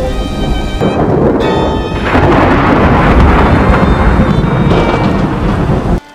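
Thunderstorm: heavy rain with rumbling thunder, a music score faintly underneath. The storm swells into a louder, fuller rumble about two seconds in, then cuts off abruptly just before the end.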